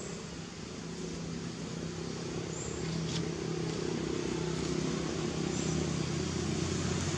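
A motor vehicle's engine running steadily, slowly growing louder.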